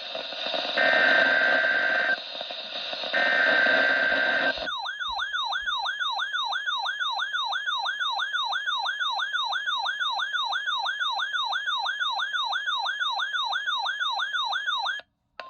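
Specific Area Message Encoding (SAME) test tones on NOAA Weather Radio: two short, buzzy digital header bursts, then an electronic siren-like alert tone warbling up and down about three times a second for roughly ten seconds, which cuts off suddenly. They mark a weekly test of the alert system.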